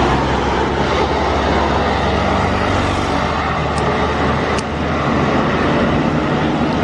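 A heavy road vehicle passing close by on an uphill road, its engine and tyres making loud, steady road noise, with two brief high ticks about four seconds in.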